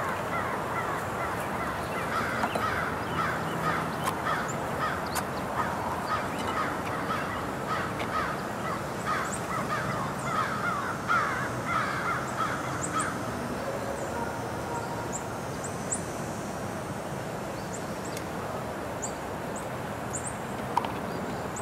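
A flock of birds calling, many short overlapping calls for about the first thirteen seconds, then dying away. A few faint high chirps follow over a steady outdoor background.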